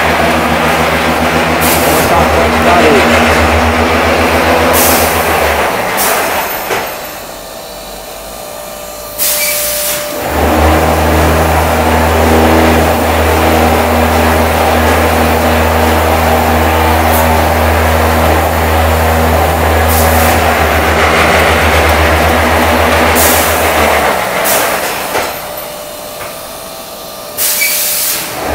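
Concrete block-making machinery running with a loud low vibrating hum. The hum cuts out twice for a few seconds. Each pause brings a sharp metallic clank before the hum starts again, and lighter knocks fall in between.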